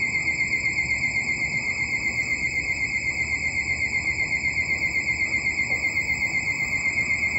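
Station platform train-approaching warning alarm: a steady, high electronic tone warbling at about eight pulses a second, warning that a train is about to pass through.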